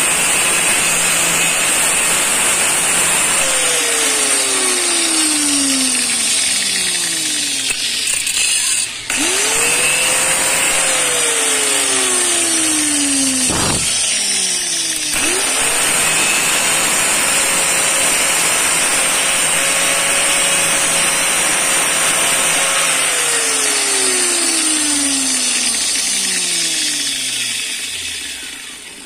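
Electric angle grinder running with an abrasive disc while the tip of a thin steel rod is ground against it. The motor's pitch sags and climbs back several times, and it winds down near the end.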